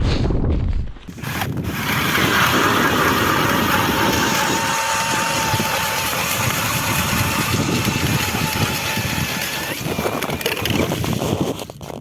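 A small engine running steadily for about ten seconds, with a rise in pitch shortly before it stops near the end.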